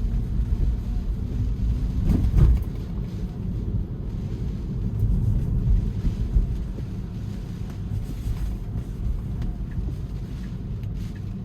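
Steady low rumble of a Tesla driving on a wet road in a windy rainstorm: tyre and wind noise, with a brief louder swell about two seconds in.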